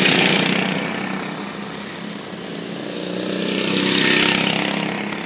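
Racing kart engines passing close by on the track: one fades away over the first two seconds, then another approaches, peaks about four seconds in and moves off.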